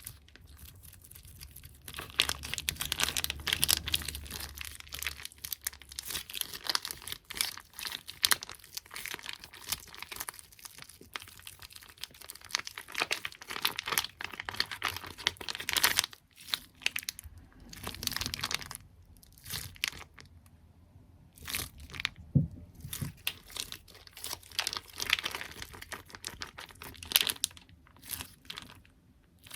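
Close-miked ASMR tapping and handling of small objects such as squishy toys and stickers: sticky, crinkly tapping and crackling in busy bursts, with a few brief pauses.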